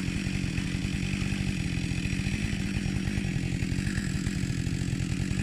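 Chainsaw engine idling steadily, with a fast even putter.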